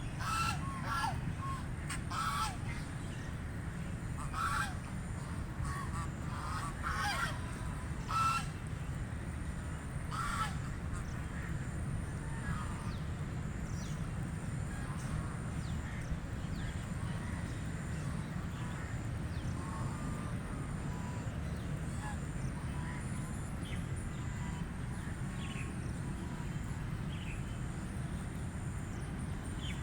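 White Pekin ducks quacking: a flurry of loud, honking quacks over the first ten seconds, then scattered fainter ones, above a steady low rumble.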